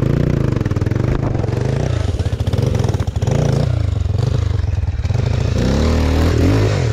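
Dirt bike engine revving up and down under load, its pitch rising and falling every second or so as the throttle is worked on rough, steep ground.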